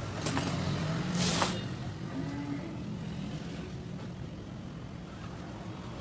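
Steady low mechanical hum, with a short hiss about a second and a half in.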